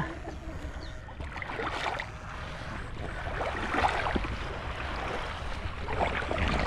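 Shallow water splashing and sloshing in irregular bursts, over a steady rumble of wind on the microphone.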